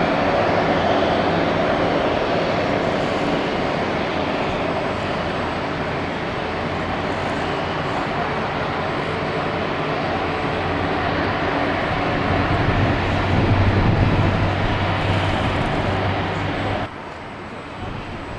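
Boeing 777-300's Rolls-Royce Trent 800 jet engines running loud and steady as the airliner rolls along the runway, swelling a little with a deep hum past the middle. About 17 s in, the sound drops abruptly to a quieter, more distant jet noise.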